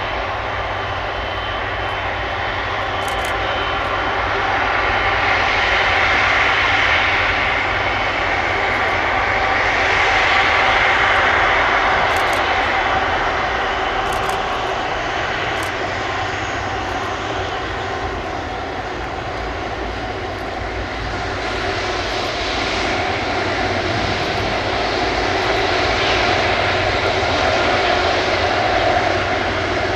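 Airbus A330-743L Beluga XL's twin Rolls-Royce Trent 700 turbofans running at taxi power, a steady whine over rushing noise that swells and eases a few times as the aircraft rolls past and turns away.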